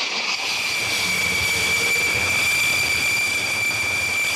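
Dassault Rafale fighter's twin turbofan jet engines running on the carrier deck ahead of a catapult launch: a steady high whine over a rushing roar.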